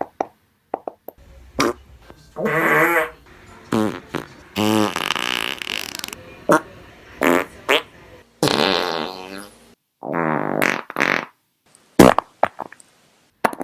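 A string of about a dozen separate fart sound effects with short silences between them. Some are short and sharp, others long and sputtering with a wavering pitch; the sharpest and loudest comes near the end.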